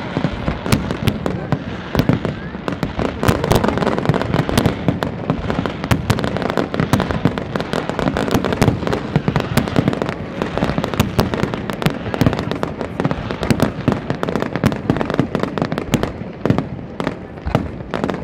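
Aerial fireworks display: a dense, continuous string of shell bursts and bangs, several a second and often overlapping, without a pause.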